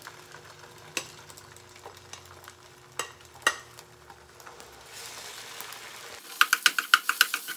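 Rice and egg frying in a non-stick pan, with a few light clicks of a plastic rice paddle as the cooked rice is scraped out of a glass bowl into the pan. The sizzle grows about five seconds in, and about a second later rapid rhythmic stirring strokes start in the pan, about six or seven a second.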